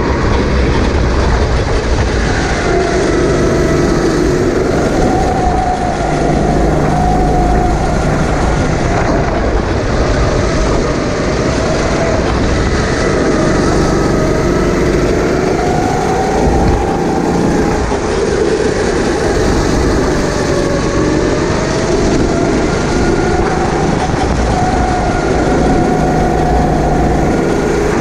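Racing kart engine heard onboard at speed. Its pitch rises on the straights and drops into the corners over and over as the throttle is worked around the lap.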